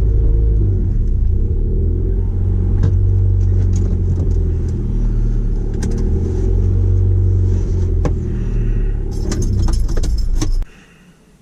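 Car running with a steady low rumble, then shut off about a second before the end, cutting out suddenly. Just before it stops there is a brief run of jingling and clicking, like keys.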